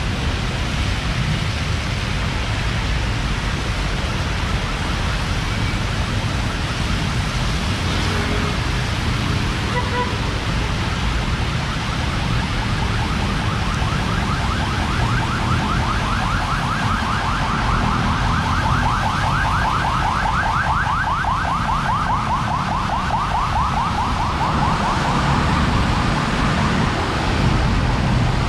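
Steady rush of rain and passing traffic on a wet street. A fast-pulsing electronic chirping, like a car alarm, starts about a third of the way in and fades out near the end.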